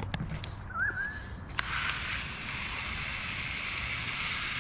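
A short squeak, then a click about a second and a half in, and water spraying in a steady hiss as it is run over a car door and its seals in a leak test.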